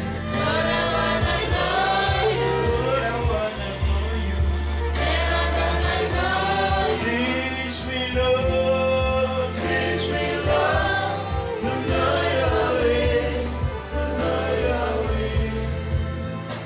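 Congregation and choir singing a gospel hymn together, accompanied by violins over held low bass notes.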